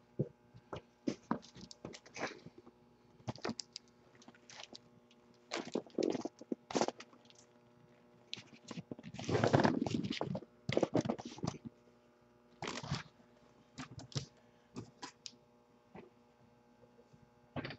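A sealed cardboard shipping case of trading-card boxes being handled on a table: scattered knocks, taps and scrapes as it is slid, tipped up and set back down, with a longer scraping rub about nine to ten and a half seconds in.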